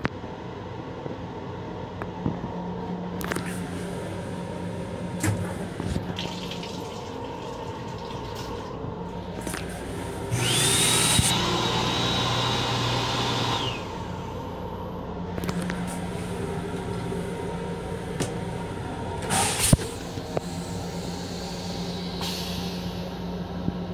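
Long Island Rail Road M7 railcar toilet flushing about ten seconds in: a loud rush with a steady high whine, lasting about three and a half seconds, over the railcar's steady hum. A sharp knock comes near the end.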